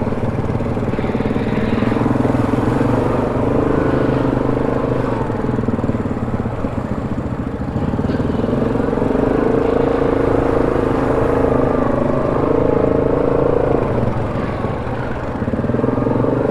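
ATV engine running steadily while riding a trail, its pitch rising and falling a little with the throttle.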